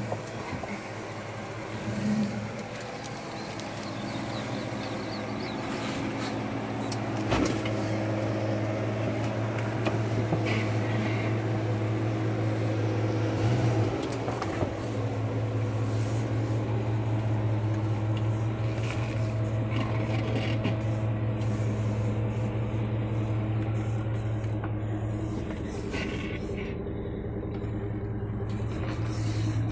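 Jeep Grand Cherokee engine running at a low, steady speed as the SUV crawls over rocks, with a couple of sharp knocks about seven and fourteen seconds in.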